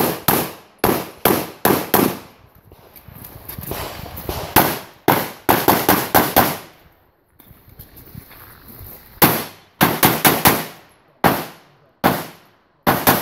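Glock 34 9mm pistol firing rapid strings of shots, in pairs and quick runs of four to six, each a sharp crack with a short echo. There are quieter gaps of a second or two while the shooter moves between shooting positions.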